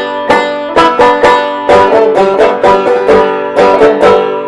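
Banjo played clawhammer style: a brisk, rhythmic run of plucked notes.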